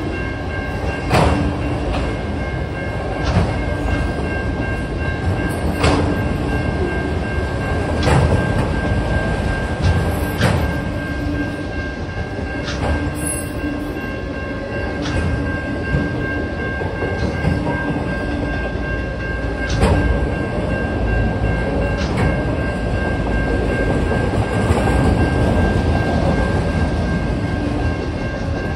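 Autorack freight train rolling past: a steady rumble of steel wheels on the rails, with a sharp click every two seconds or so as the wheels cross the rail joints. A thin, steady, high whine runs underneath.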